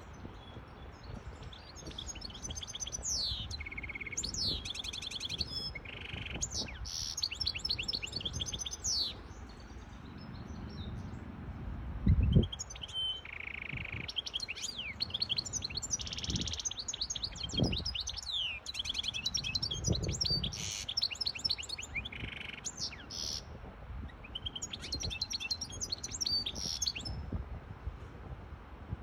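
Goldfinch hybrid singing: a long string of rapid twittering trills and buzzy notes in phrases broken by short pauses, over a low wind rumble. A dull thump comes about twelve seconds in.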